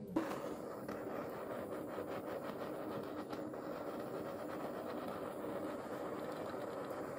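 A handheld gas torch is lit with a click just after the start, then its flame burns with a steady hiss.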